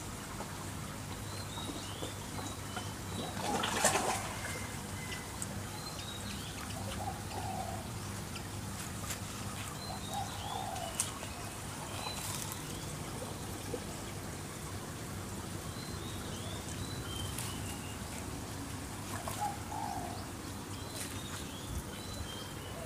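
Birds calling in the background: groups of short, falling high chirps every few seconds and a few lower cooing notes, over a steady low hum and faint trickling water from the pond. A short, louder noise about four seconds in.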